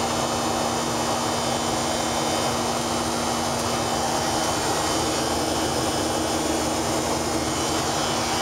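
Steady cabin noise of a Boeing 737-500 in flight, heard from inside the cabin: the drone of its CFM56-3 jet engines and the rush of air over the fuselage. A steady low hum runs through it.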